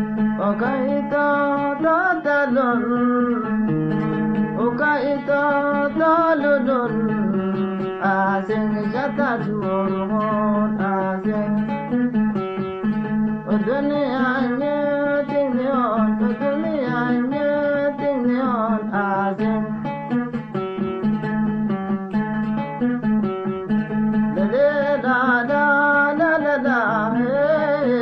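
A man singing while playing an oud. The plucked strings run steadily under a vocal line that slides and bends between its notes.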